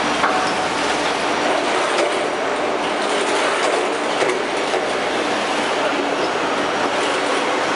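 Steady loud machinery noise of hydraulic riveting equipment on a vehicle chassis line, with a few light clicks, about three or four in all, over the first half.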